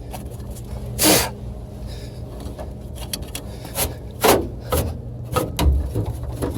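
Quick swishing strokes of dust being cleaned off a blower motor, several short irregular swishes over a steady low hum.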